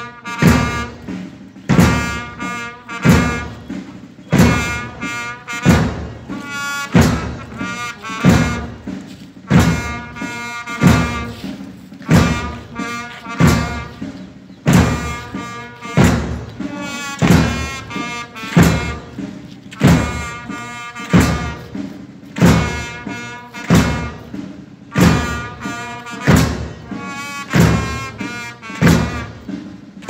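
Military band playing a slow funeral march: a bass drum struck about once a second under a melody on wind instruments.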